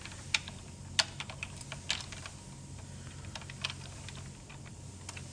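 Small plastic parts of a Steelcase Gesture chair's adjustment knob clicking and clattering as the inner components are fitted back into the knob: an irregular scatter of light clicks that thins out after about four seconds.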